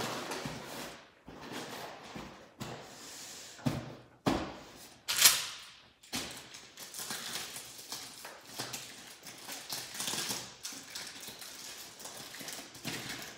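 Cardboard shipping box and plastic packaging being handled and opened: irregular rustling, crinkling and scraping, with one sharper, louder noise about five seconds in.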